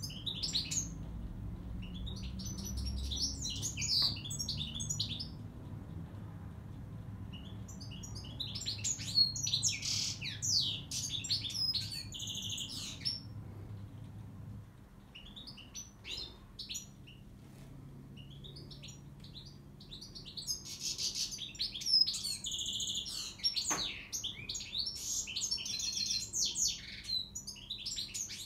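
Caged European goldfinch singing: bouts of fast, high twittering with buzzy trills, each a few seconds long, broken by short pauses.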